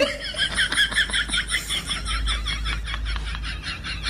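Crickets chirping in a fast, even pulse of about seven chirps a second, over a faint low hum.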